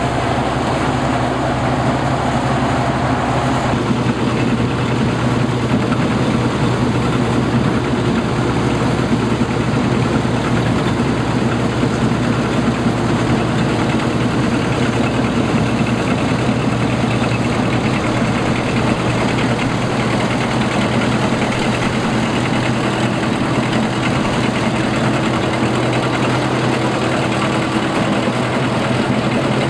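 Combine harvester running steadily, its engine giving a continuous drone. A higher tone in it stops about three and a half seconds in.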